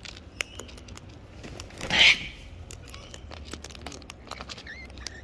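Many small clicks and taps, with one short, harsh cockatoo screech about two seconds in.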